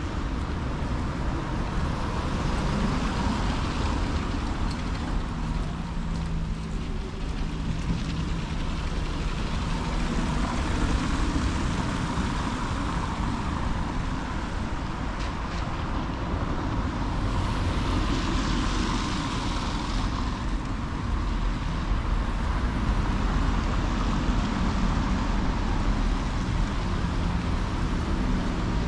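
Street ambience of road traffic: a steady rumble of passing vehicles, with one louder hissing pass about two-thirds of the way through.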